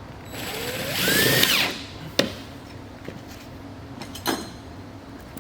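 Power drill driving a screw through a stainless steel fastening clip. It runs for about a second and a half, its pitch rising as it speeds up, then stops. Two sharp clicks follow.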